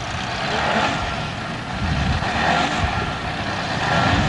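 A racing car's engine running hard on a hillclimb run, its pitch wavering slightly, heard over the hiss of an old VHS recording.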